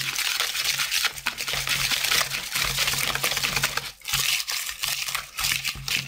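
Wire whisk beating pancake batter in a plastic bowl: a rapid run of scraping, clicking strokes as the wires hit the bowl, with a short break about four seconds in.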